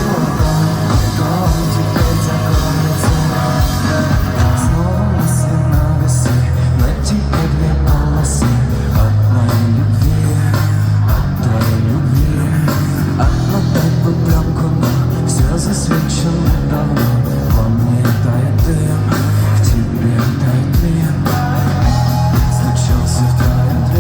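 Rock band playing live with singing, drums and a heavy bass line, heard as loud, full concert sound.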